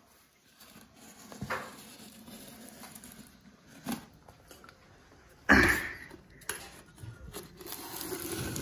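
Steel scissors scraping and snipping at packing tape along the seam of a polystyrene ice box, heard as scattered small clicks and scrapes. One louder thump comes about five and a half seconds in.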